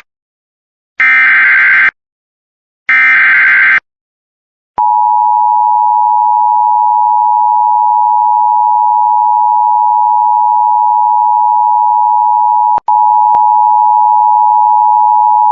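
Emergency Alert System SAME header: two short, identical bursts of screechy digital data about a second apart, then a loud, steady attention tone that starts about five seconds in and drops out for an instant near the end. This is the opening of a new alert.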